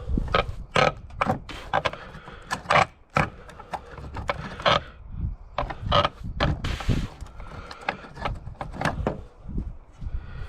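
Hammer blows on wooden porch 2x4s, many sharp knocks in an uneven series as a board held by a single nail is banged loose, with a brief scrape about seven seconds in.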